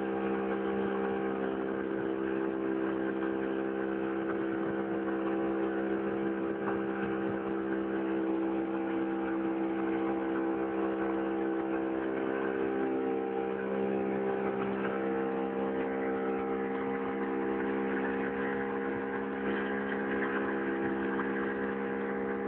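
A 30 hp outboard motor pushing a small boat along at a constant speed, running steadily with an even, unchanging engine note.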